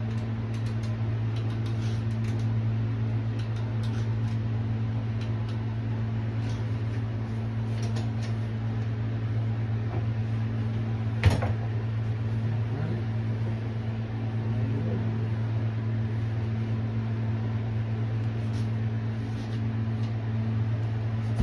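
A steady low mechanical hum, with scattered light clicks and one sharper click about eleven seconds in from a caulking gun being worked while a bead of silicone is laid.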